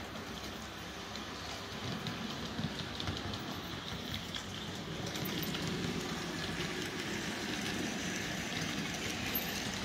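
Märklin TGV Duplex H0 model train running along the layout track: a steady motor hum under a fast, fine clatter of wheels on the rails, getting louder about halfway through as the train comes close.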